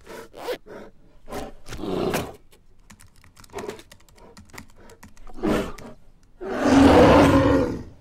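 Laptop keyboard typing in short irregular clicks, then about six and a half seconds in a loud bear roar lasting about a second.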